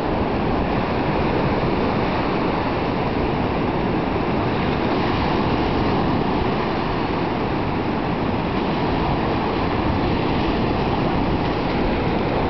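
Steady rushing noise of waves and wind at the beach, with a rough low rumble from wind on the microphone.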